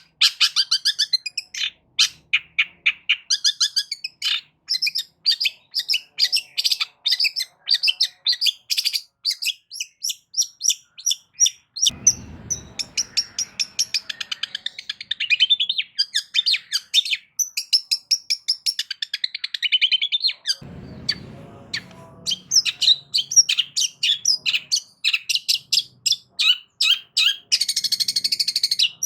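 Long-tailed shrike (cendet) singing a loud, fast, continuous chattering song of short high notes, with phrases mimicked from other birds. Two short low rumbles come under the song about halfway through and again later.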